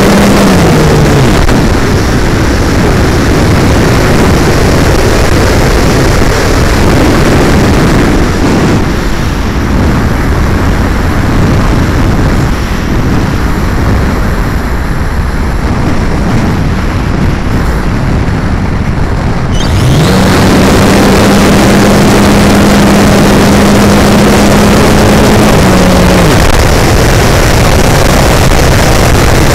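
Heavy wind rush over the onboard camera of a Plasma 2 hotliner, an electric-powered RC glider, in fast flight. The electric motor and propeller hum at a steady pitch at the start and cut off about a second in, then spin up again about two-thirds of the way through, run steady, and drop away near the end.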